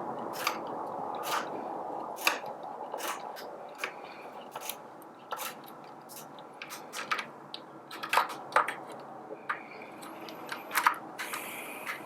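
Irregular light clicks and taps of a 90-degree Phillips screwdriver on the motor mount screws of a Baratza Forte coffee grinder as they are snugged up.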